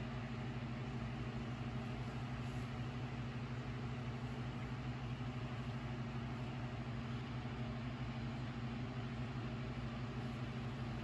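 A steady low mechanical hum with an even tone throughout and a faint hiss above it.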